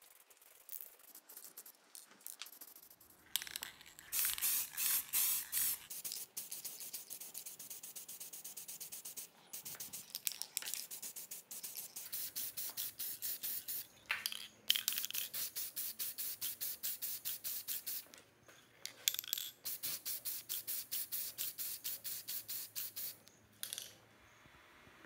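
Aerosol spray-paint can in use, its hiss and rattle coming in quick pulses about five a second, in three runs.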